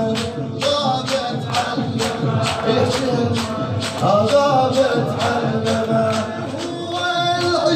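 A male radood chants a Shia latmiyya elegy in a melodic, sung voice over a steady percussive beat of about two strikes a second.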